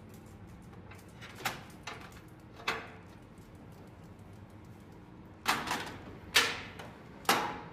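Rifles clanking and rattling against a metal weapons rack as they are handled. A few light clanks come early in the stretch, then three louder clanks with a short rattle, about a second apart, near the end.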